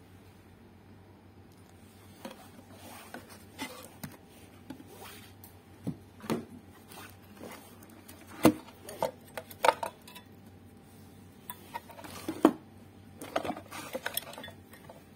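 Irregular knocks, taps and clatters of hard parts being handled and set down on a wooden workbench: a thin wooden panel and an amplifier board with an aluminium heatsink being moved about. The sharpest knocks come past the middle.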